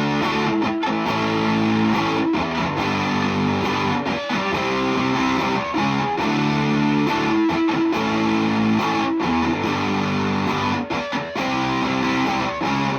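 Electric guitar played through a Gourd Tech Flum Dilly Distortion & Boost pedal, giving a thick, distorted tone. Chords are strummed and held, changing every second or two.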